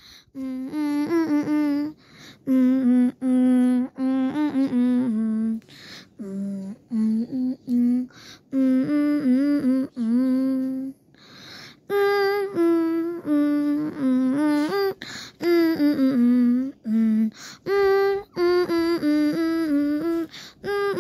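A voice humming a wordless tune in short phrases of held notes, stepping up and down with a slight wobble, pausing between phrases.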